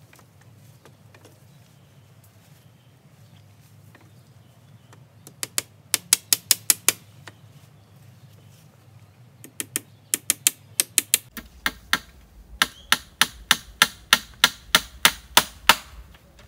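Rapid sharp taps of a hammer, about five strikes a second, in three runs: a short one, a second short one, then a longer run.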